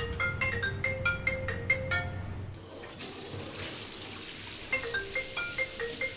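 Light background music of short marimba-like notes over a low bass, with the bass dropping out about two and a half seconds in. About halfway through, the steady hiss of a running shower's spray comes in under the melody.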